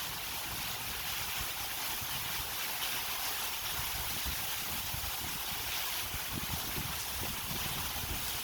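Heavy hurricane rain pouring steadily, with gusts of wind buffeting the microphone.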